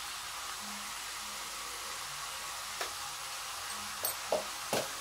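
Chopped zucchini frying in oil in a pan: a steady, soft sizzle, with a few faint clicks in the second half.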